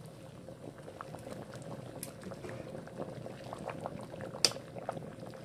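Pot of whole chicken and ginseng broth boiling, its bubbles making many small pops and gurgles. One sharp, louder click comes about four and a half seconds in.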